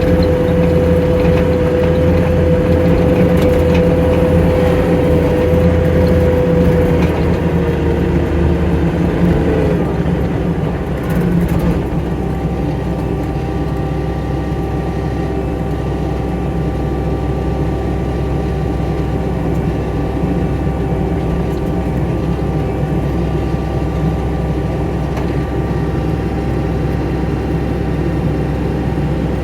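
Skid steer engine running steadily, with a high whine over it that fades out about eight or nine seconds in. After that the engine runs on at a slightly lower, even level.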